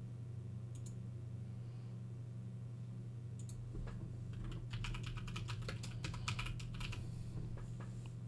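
Typing on a computer keyboard: a couple of single key clicks, then a quick run of keystrokes from about four to seven seconds in, over a steady low hum.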